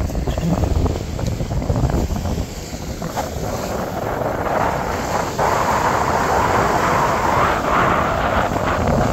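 Wind buffeting the microphone over the wash of the sea. The hiss of the wash grows louder a little past halfway through.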